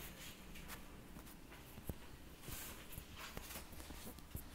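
Faint room noise with scattered small clicks and ticks.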